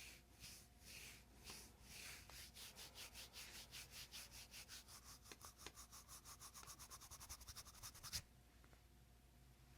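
Rhythmic rubbing strokes that speed up steadily from about two a second to several a second, then stop abruptly about eight seconds in.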